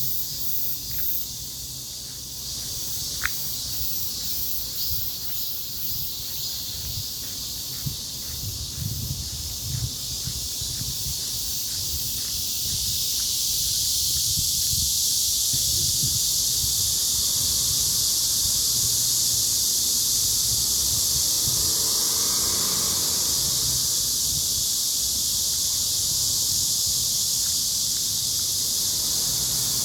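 Outdoor insect chorus: a steady high-pitched buzz that swells louder about twelve seconds in, over a fluttering low rumble, with a few faint clicks.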